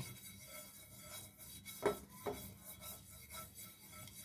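A cut potato on a fork rubbed around an oiled nonstick frying pan to spread the oil: faint repeated scraping strokes, with two light knocks about two seconds in.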